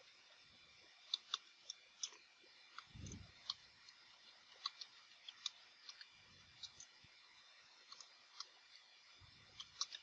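Faint, irregular clicking of computer keyboard keys being typed, with a few soft low thuds between keystrokes.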